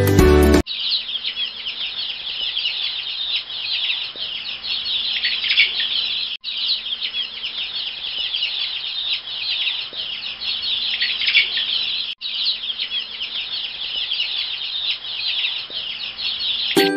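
A flock of young chicks peeping, a dense, continuous chorus of high chirps. It breaks off for an instant twice, about six seconds apart.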